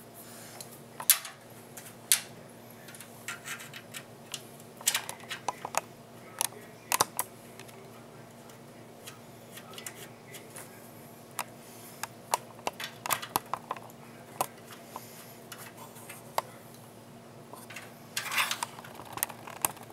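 Irregular small metallic clicks and clinks of screws and a screwdriver being worked into the metal hard-drive cage of a PC case, with a short rattle near the end.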